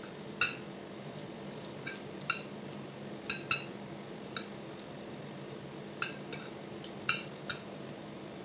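Metal spoon and fork clinking and scraping against a ceramic plate while eating rice and curry. There are about a dozen sharp clinks at irregular intervals, the loudest about half a second in, over a faint steady hum.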